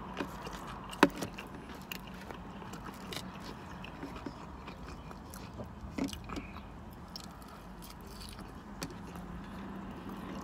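A person chewing food, with sharp clicks of a plastic fork against a plastic takeout bowl, the loudest about a second in and another around six seconds, over a low steady hum.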